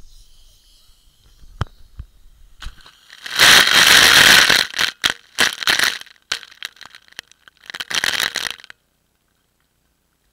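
Water from a garden hose spraying onto a waterproof camera's housing: a loud rushing hiss for about two seconds, then scattered crackling drops and a second, shorter burst of spray. The sound cuts off suddenly near the end.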